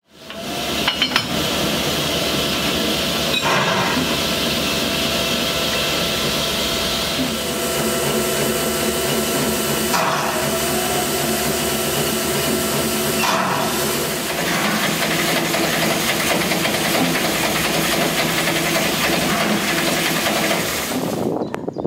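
LNER A2 Pacific steam locomotive venting steam with a loud, steady hiss, and a few short knocks over the top.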